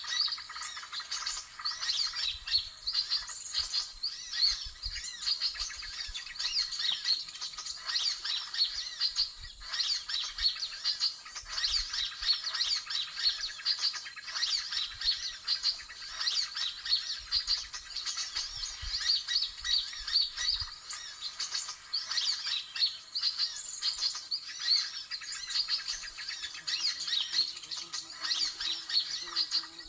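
Many small birds twittering and chirping at once in a dense, unbroken flock chatter. This is the 'ribut' (commotion) call used as a lure for trapping birds such as sunbirds.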